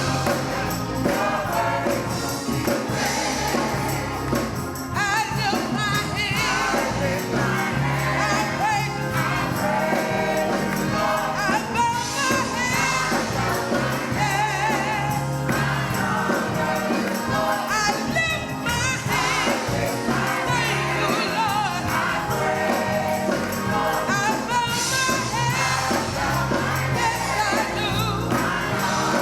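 A gospel choir singing with instrumental accompaniment, over a steady bass line.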